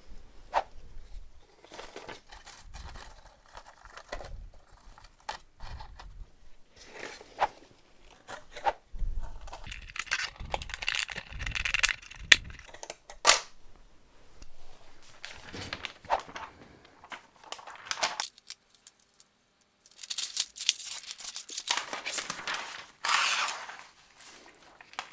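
Thin plastic laminating-pouch film being handled, crinkling and tearing in irregular stretches, with a few light knocks. The sound stops for a second or two about three-quarters of the way through.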